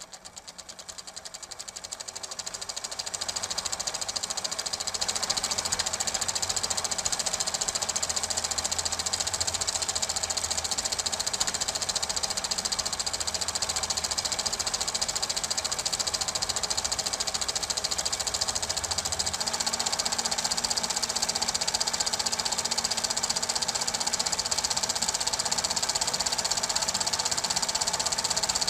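Super 8 film projector running: a fast, even mechanical clatter of the film drive that fades in over the first few seconds and then runs steadily.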